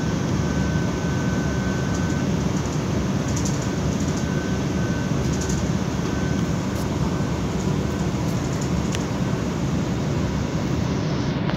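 Steady running noise of a passenger train at speed, heard from inside the carriage: an even low rumble with a faint high whine that comes and goes.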